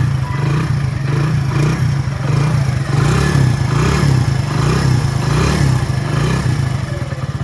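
Hero Passion Pro's single-cylinder four-stroke engine running steadily, with the loose weight inside the clutch cover refitted; its sound has completely changed, now free of the weight's rattle.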